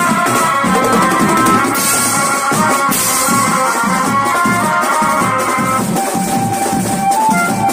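Live band music: rows of tom drums beaten with sticks in a fast, steady rhythm, with cymbal crashes, under a keyboard melody. About six seconds in, the melody moves to a long held note.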